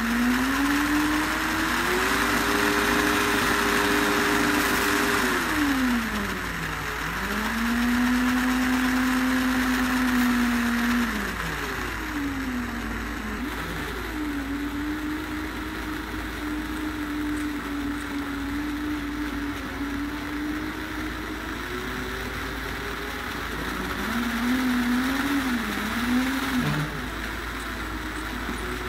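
Small electric motor driving a cardboard axle's wheels through plastic spur gears, whining with a gear hiss. The pitch rises and falls several times as it speeds up and slows down, dipping sharply twice in the first half and wavering near the end.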